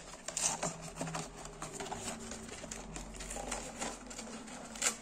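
Hands handling and opening a cardboard Pokémon trading-card collection box: scattered soft clicks and light rustles of card and plastic packaging, with one sharper click near the end.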